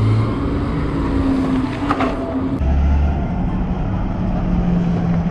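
A motor vehicle engine running close by in street traffic, holding a steady low hum whose pitch drops about halfway through, over a low rumble.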